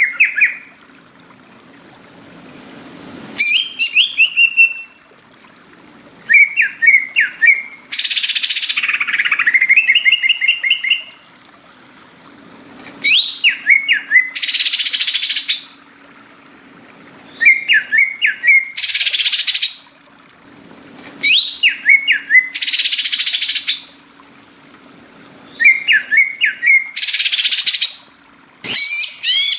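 Cucak ijo (green leafbird) calling in a repeating phrase: a quick run of rising chirps followed by a harsh, rasping burst, about every four to five seconds.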